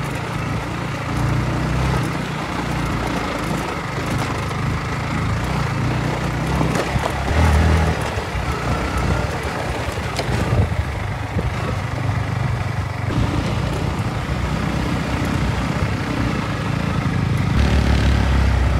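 Engine of a moving road vehicle running steadily, with road noise. It grows louder briefly about eight seconds in and again near the end.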